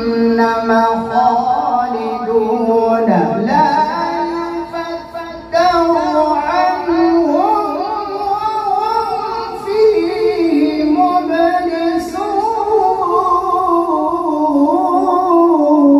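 A man reciting the Qur'an in slow, melodic tartil style, drawing out long ornamented notes, with a short pause for breath about five seconds in.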